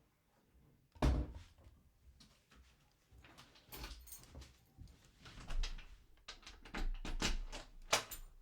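Kitchen handling noises as eggs are cooked: a sharp knock about a second in, then a string of clattering knocks and taps with some low thuds, like a pan and utensils being moved about. No steady sizzle is heard.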